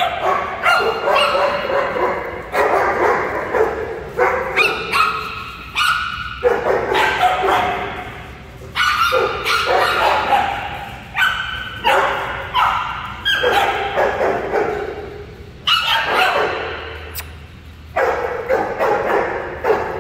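Small dogs barking and yipping over and over while they play, one sharp bark after another, roughly once a second with short gaps.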